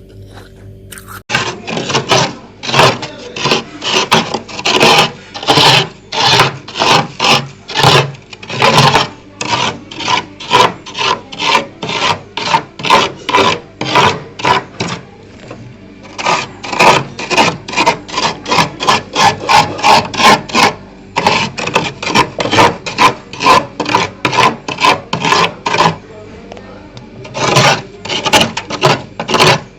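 Freezer frost being scraped in quick repeated strokes, about three a second, with two short pauses in the second half, over a low steady hum.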